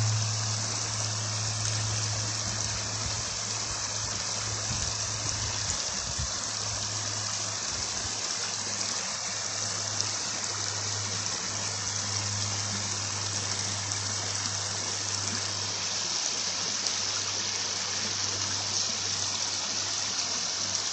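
River water flowing steadily, an unbroken rush of the current, with a low steady hum beneath it.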